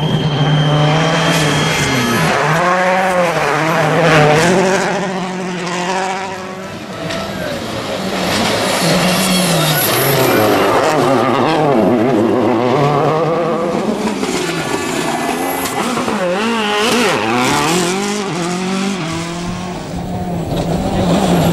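Rally car engine revving hard, its pitch rising and falling again and again through gear changes and corners.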